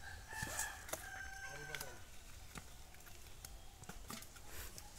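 A rooster crowing: one drawn-out call over the first two seconds, sagging slightly at the end, with scattered light clicks and taps around it.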